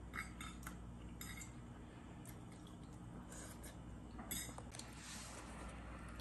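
Metal cutlery clinking and scraping on a plate: a few light, sharp clinks, the loudest a little over four seconds in.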